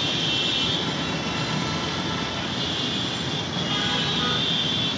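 Steady wash of city traffic noise with a constant high-pitched hiss over it.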